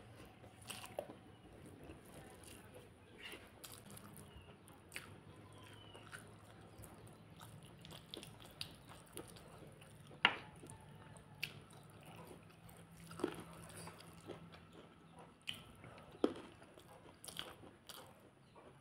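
Close mouth sounds of a person eating rice and chicken curry by hand: chewing and lip smacks with scattered sharp clicks, the loudest about ten seconds in, alongside the soft squish of rice being mixed with the fingers.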